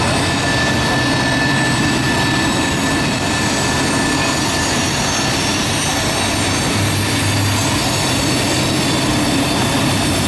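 Norfolk Southern freight train of loaded trash-container cars rolling steadily around the tight Horseshoe Curve: a constant rumble of wheels on rail with thin, steady high-pitched wheel squeal from the flanges grinding on the curve.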